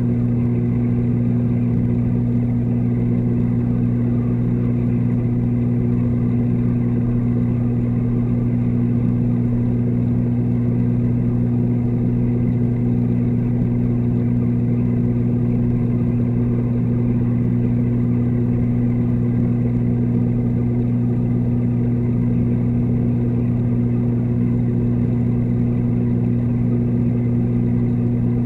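Steady low hum of a reef aquarium's pumps, picked up underwater through a waterproof camera housing: a constant drone with a strong low tone and a second tone an octave above.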